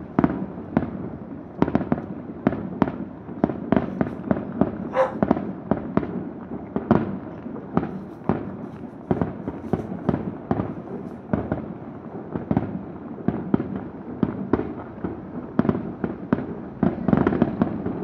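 Fireworks display: an irregular string of booms and bangs, about two a second, with a denser volley near the end.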